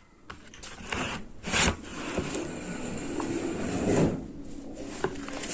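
Dry gray edible clay being bitten and chewed close to the microphone: a few sharp snaps as chunks break off in the first two seconds, then steady crunchy chewing.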